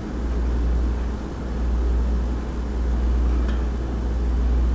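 A steady low hum that swells and eases slowly, with a faint hiss above it.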